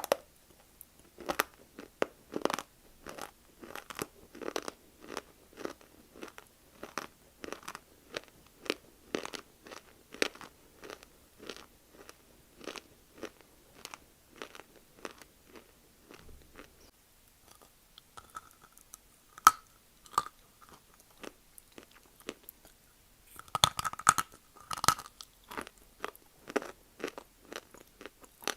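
Close-up crunching and chewing of dry multani mitti (fuller's earth clay), crisp crunches coming a couple of times a second. Past the middle the crunching thins to a few bites, then a cluster of louder crunches follows.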